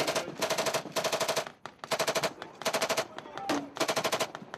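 Close automatic gunfire in about eight short, rapid bursts, each well under a second long, fired one after another with brief pauses between them.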